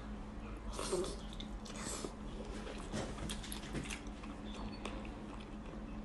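Faint, scattered wet mouth clicks and smacks of someone eating braised pork belly close to the microphone, a few soft ticks a second apart, over a low steady hum.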